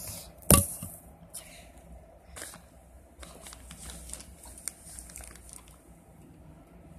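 Handling noise as a phone is carried and swung about: a sharp knock about half a second in, then scattered light clicks and rustles.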